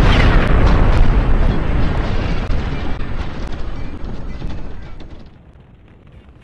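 A loud, deep boom that rumbles and crackles, dying away over about five seconds.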